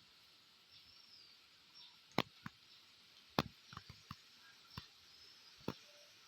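About six sharp clicks or snaps at irregular intervals, a few close together in the middle, over faint high whistled bird calls.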